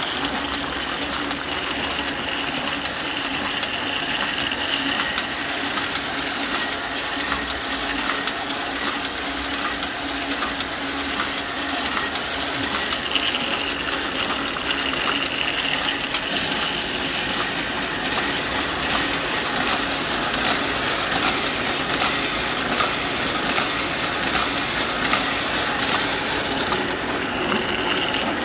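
A.B. Dick 360 single-colour sheet-fed offset press running, a steady mechanical clatter with a regular ticking as it cycles through sheets.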